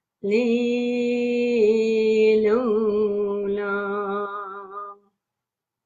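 A woman singing a chant syllable ('lula') unaccompanied, holding one long, nearly steady note with a couple of small pitch slides, then stopping abruptly about five seconds in.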